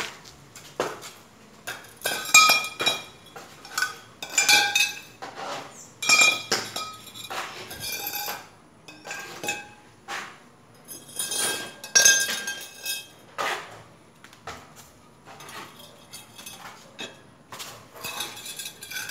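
Metal pool-frame tubes clinking and clattering against one another and the concrete floor as they are set down in rows, in repeated bunches of knocks, each with a short ringing tone.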